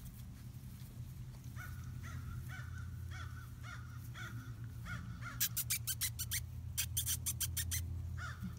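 Crows cawing over and over, two or three short caws a second. Between about five and eight seconds in comes a quick run of sharp clicks and knocks as puppies scramble against the camera.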